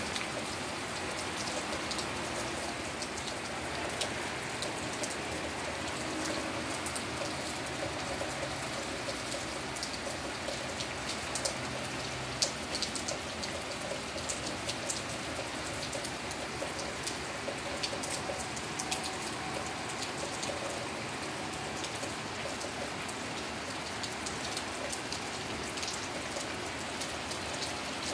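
Steady rain falling, with many sharp drop ticks close by over an even hiss; one louder tick comes about twelve seconds in.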